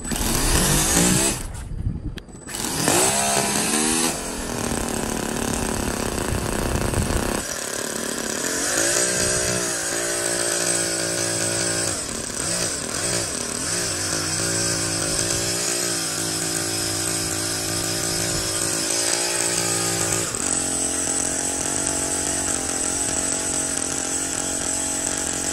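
Toyan FS-S100 single-cylinder four-stroke nitro model engine running while driving a small water pump. It revs unevenly, with a short drop, in the first few seconds, then runs on with its pitch drifting slightly up and down.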